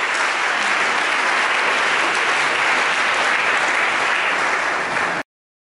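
A congregation applauding: a steady, dense clatter of many hands clapping, which cuts off suddenly near the end.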